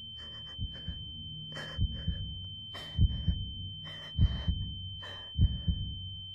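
Heartbeat sound effect: low double thumps repeating about every 1.2 seconds over a low drone, with a steady high-pitched tone underneath.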